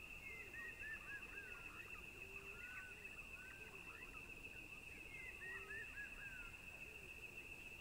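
Faint outdoor ambience: small birds chirping in two quick runs of short rising and falling chirps, near the start and again about five seconds in, over a steady high-pitched drone.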